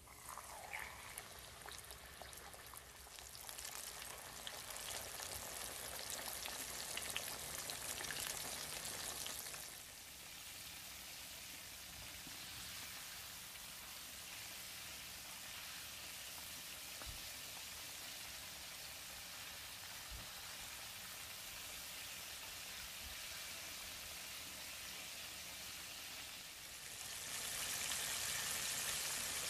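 Whole flour-dredged snapper deep-frying in hot vegetable oil over high heat, a steady crackling sizzle. The sizzle starts as the fish is lowered into the oil, drops back about ten seconds in and grows louder again near the end.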